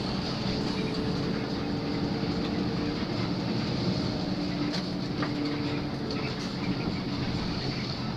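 Intercity bus running on the road, heard from inside the cabin: a steady engine drone and road noise with a constant low hum.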